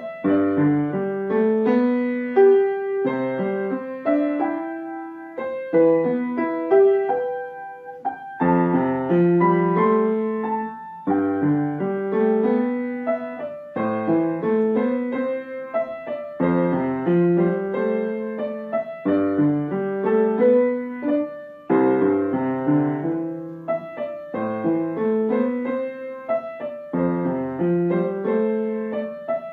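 Piano being played solo: a slow melodic piece of struck notes and chords, phrases starting afresh every two to three seconds.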